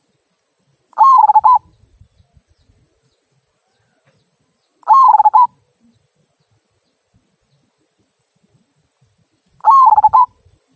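Local zebra dove (perkutut) cooing with its 'kung' voice: three short, loud coos about four seconds apart.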